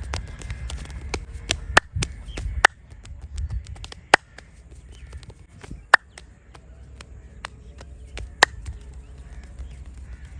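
Sharp cracks and slaps of a head massage, about five loud ones at irregular intervals among softer clicks, over the low rubbing of hands on head and skin.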